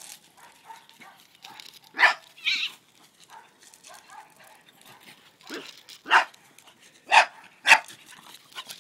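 French bulldog barking at a cat: short sharp barks, mostly in quick pairs, about six in all, the first about two seconds in.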